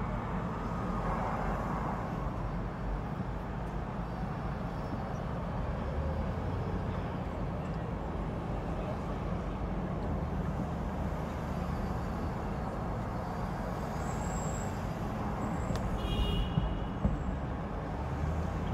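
City street traffic heard from the roof of a moving car: a steady low rumble of engines and tyres. About sixteen seconds in, a brief high-pitched squeal and a couple of sharp knocks stand out as the loudest moment.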